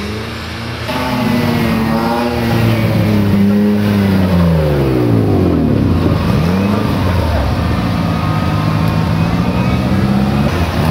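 Off-road rally vehicle engines revving hard, their pitch sweeping up and down again and again, with more than one engine heard at once.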